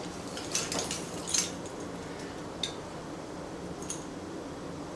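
Light handling noises from a wiring harness and its parts being moved about: a few small plastic clicks and clinks, the clearest about a second and a half in, over a faint steady hum.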